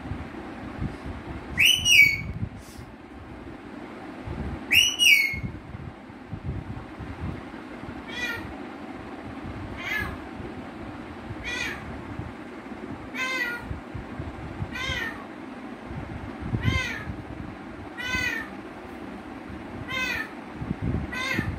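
Pet rose-ringed parakeet imitating a cat's meow: two loud meows in the first few seconds, then a run of shorter, fainter meows repeated about every one and a half to two seconds.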